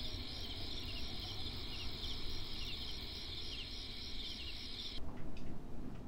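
Night ambience of chirping insects: a steady high chirring with short chirps repeating about twice a second, cutting off suddenly about five seconds in. A few faint ticks follow.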